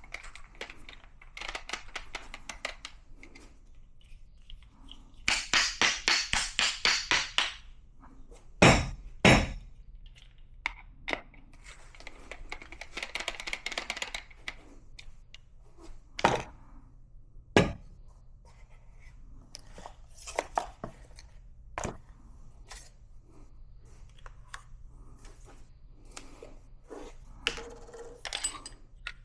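Hard coffee equipment being handled on a table. A quick run of about ten rattling taps comes about five seconds in, then two hard knocks, then scattered single knocks and clinks of metal and glass.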